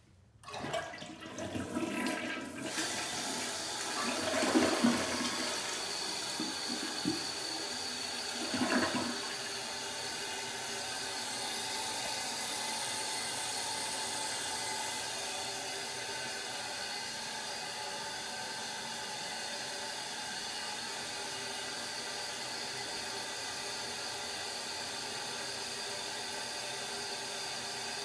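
A toilet is flushed: water rushes and gurgles through the bowl for about nine seconds, with a last loud gurgle near the nine-second mark. Then the tank refills through its fill valve with a steady hiss. It is a complete, normal flush-and-refill cycle.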